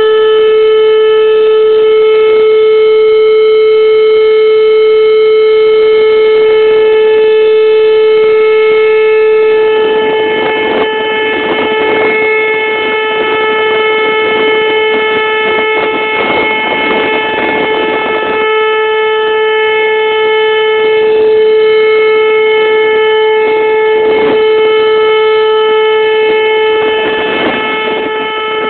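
Whelen electronic tornado warning siren, which the owner takes for a 2810, sounding a steady alert tone: one unbroken, loud, buzzy pitch with many overtones. Its level swells and dips slightly as it plays.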